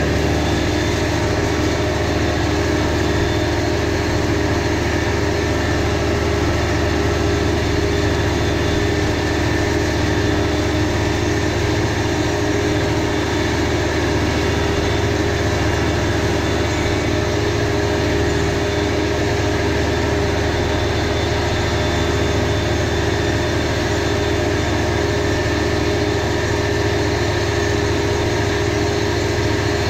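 Deutz-Fahr DX 3.65 tractor's air-cooled four-cylinder diesel running steadily under load, driving a Pöttinger NovaDisc 265 disc mower while mowing grass, heard inside the cab.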